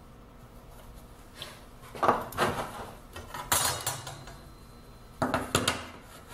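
Hand tools and a metal swivel caster being moved about and set down on a wooden workbench: three clusters of clattering knocks and clinks, the first about two seconds in, the next about a second and a half later, the last near the end.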